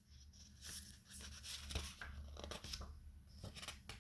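Faint rustling with scattered small clicks over a low, steady hum.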